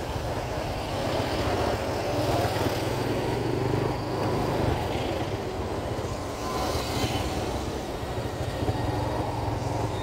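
Small motorcycle engine of a tricycle (motorcycle with sidecar) running steadily underway, heard from aboard, with steady road noise.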